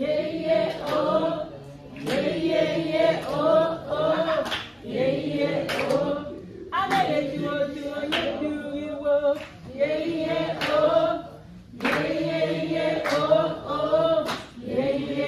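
A group of voices singing together in short phrases, with brief pauses between them.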